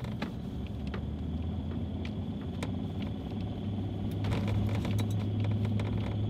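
Road noise inside a vehicle cabin driving on a snow-covered road: a steady low engine and tyre rumble, with scattered small clicks and rattles from the cabin.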